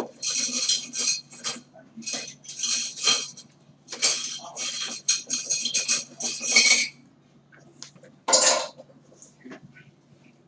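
Cutlery and dishes clattering at a dining table during a meal: a run of short scraping and clinking strokes, in clusters over the first seven seconds, with one more louder scrape about eight seconds in.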